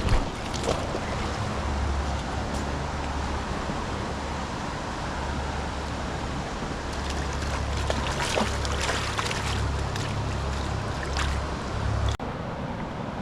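Stream water running steadily, with low wind rumble on the microphone that cuts off suddenly about twelve seconds in; a few short ticks or splashes over the top.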